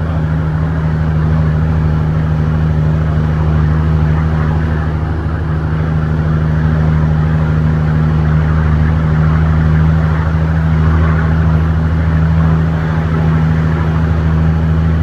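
Heavy diesel truck engine running at a steady drone, heard from inside the cab while driving, with road noise over it.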